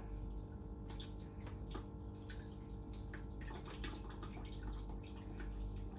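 Glutinous rice being rinsed by hand in a bowl of water: irregular small splashes and sloshing, over a steady low hum.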